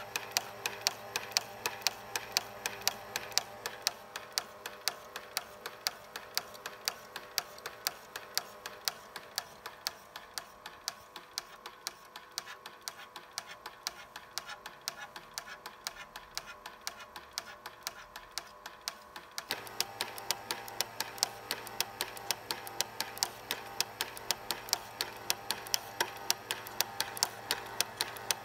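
Somikon HD-XL Super 8 film scanner advancing the film frame by frame: a steady run of clicks, about two and a half a second, over a steady motor hum. The sound gets louder about two-thirds of the way in.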